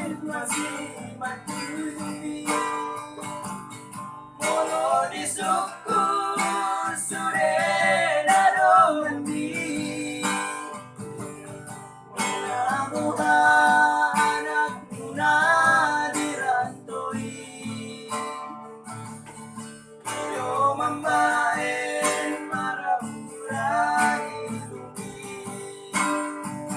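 Acoustic guitar accompaniment, strummed and plucked, with phrases of singing with vibrato coming in and out over it.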